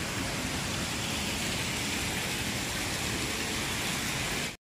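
Steady rush of water splashing in an indoor fountain, an even hiss without pauses.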